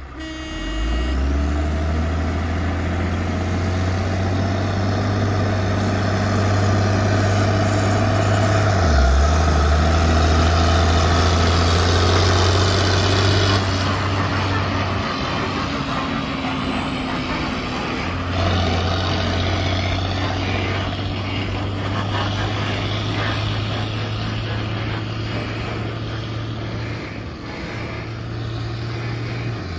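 Dezzi H140T haulage tractor's diesel engine pulling three loaded cane trailers past at work, with a steady low engine hum that is loudest as it passes about halfway and then fades as it draws away.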